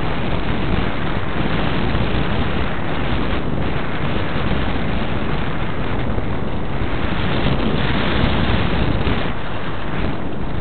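Airflow buffeting the onboard camera's microphone on a Parkzone Radian glider in flight: a steady, loud rushing noise with no motor tone in it, as when the glider is soaring with the motor off.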